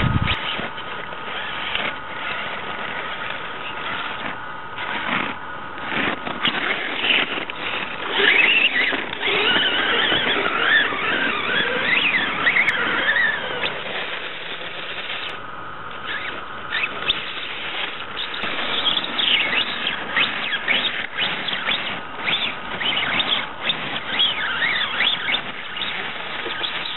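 Small electric motor and gears of a radio-controlled rock crawler whining as it drives, the pitch rising and falling with the throttle.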